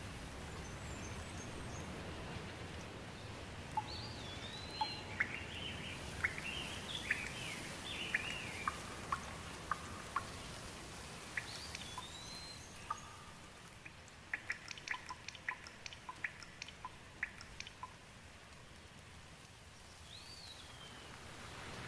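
A bird calling over and over in short whistled notes that rise and fall, over a faint steady hiss of rain. Partway through, a quick run of water drips ticks for a few seconds.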